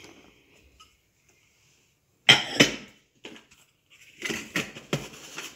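Kitchenware knocking on a glass mixing dish: a loud clatter a little over two seconds in, then a run of lighter knocks and clicks of a bowl and wire whisk against the glass.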